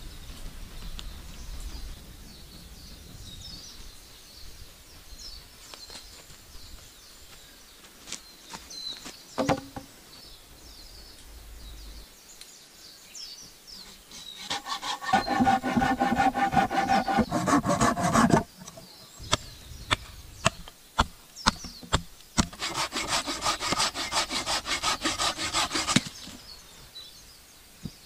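A saw cutting through wood in two spells of a few seconds each, fast rasping strokes, with a few sharp knocks in the pause between them. Faint bird chirps come before the sawing.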